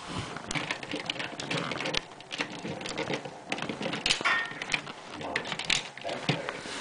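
Plastic Lost in Space robot toy being handled: a fast, irregular run of clicks and rattles as its arms and head dome are moved by hand.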